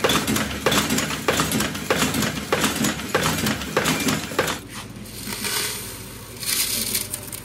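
Rhythmic clanking strikes on iron, about eight evenly spaced blows at roughly one every two-thirds of a second. They stop about four and a half seconds in, giving way to a rougher, steadier workshop noise with one brief louder burst near the end.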